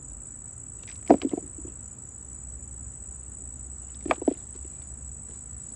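Insects trilling steadily at one high pitch, with two brief clusters of quick knocks, about a second in and again about four seconds in.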